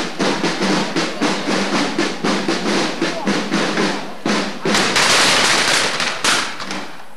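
Procession drums beating a steady march, about three strokes a second, over crowd voices. About four and a half seconds in, a dense burst of loud crackling noise takes over for a second and a half, ending in a sharp crack, and then the sound cuts off.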